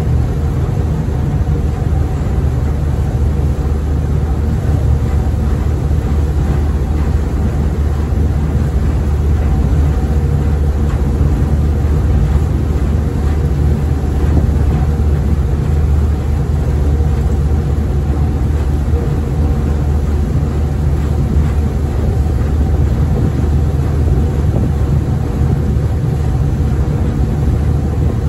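Diesel engine of the small ferry Tsui Wah No. 12 running steadily under way: a loud, even low drone that does not rise or fall.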